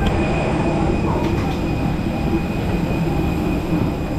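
Steady loud rumble with a constant thin high whine: aircraft and ramp machinery noise in the jet bridge at the open cabin door of an Airbus A320neo.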